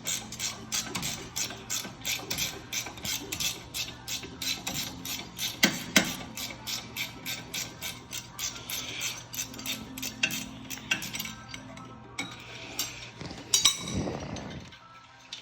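Ratchet wrench clicking in a steady rhythm, about four clicks a second, as a bolt is turned, with a couple of louder metal clanks about six seconds in. A steady low hum runs underneath.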